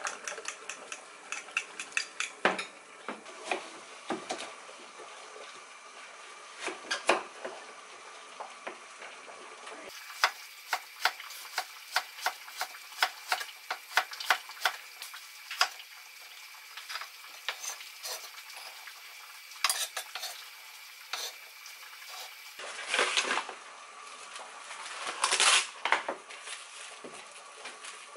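A kitchen knife chopping carrots on a wooden cutting board, a run of sharp knocks on the board at a few a second. Near the end, plastic wrap crackles as it is stretched over a bowl.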